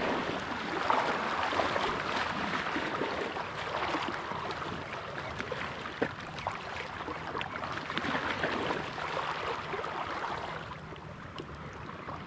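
Small waves lapping and splashing among shoreline rocks, an uneven wash full of little ticks, easing off near the end.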